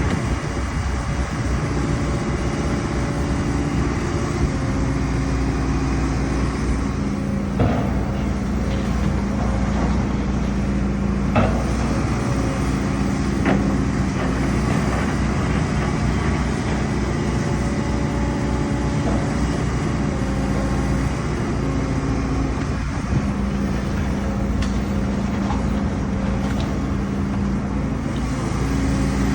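Hidromek excavator's diesel engine running steadily, its pitch stepping up and down over seconds as the load changes. A few brief sharp knocks come through it.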